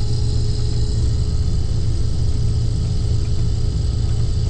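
Combine harvester's engine and separator running steadily, a constant low drone with a steady hum above it.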